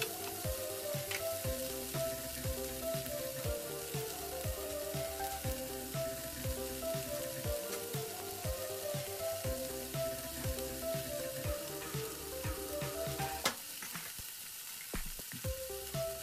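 Bok choy, pork and onion sizzling as they stir-fry in a nonstick frying pan, with background music carrying a melody and a steady beat. A sharp click comes about 13 seconds in.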